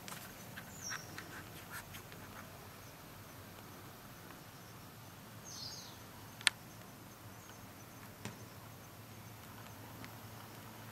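Quiet outdoor ambience with two short, high bird chirps, about a second in and just before the middle, and a single sharp click just after the middle.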